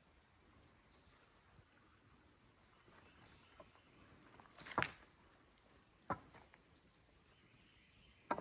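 A few footsteps on a leaf-littered dirt trail, the loudest about halfway through, over quiet woodland with a faint high chirp repeating about twice a second.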